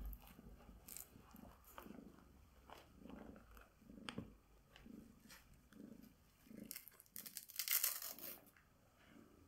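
Bengal cat purring, a soft pulse repeating with each breath, with a few light clicks. Late on, a loud rasping rustle of fabric as the pet grooming glove is pulled onto a hand.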